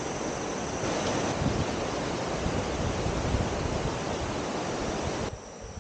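Steady rushing of a rocky river's white-water rapids below a suspension bridge, with wind buffeting the microphone; it cuts off abruptly about five seconds in.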